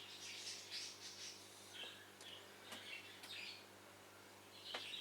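Faint bird chirps, scattered short calls, over a low steady hum, with a few small clicks.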